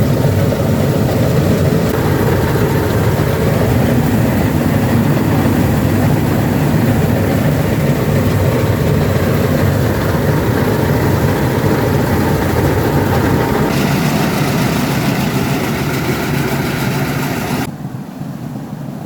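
Engine of a rice-harvesting machine running steadily. Near the end the sound drops abruptly to a quieter level.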